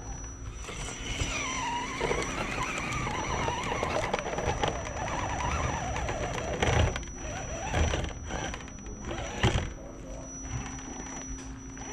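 Axial SCX10 RC rock crawler's electric motor and gear drivetrain whining, the pitch rising and falling as it crawls over rock, with a few louder knocks and scrapes of the tyres and chassis on the rock in the second half.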